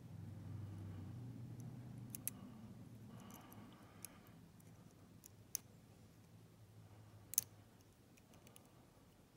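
Small, sharp metal clicks and a brief scrape from a lock pick working the sliders inside a ZETA dimple slider padlock: four separate clicks, the loudest near the end, over a low hum that slowly fades.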